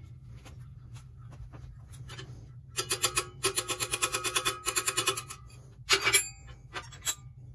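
Ball-peen hammer tapping a stainless steel Oetiker ear clamp band against a bench vise, about six ringing metal strikes a second, as the used clamp is hammered back into shape. The taps come after a short pause, with a couple of harder blows about six seconds in and one more near the end.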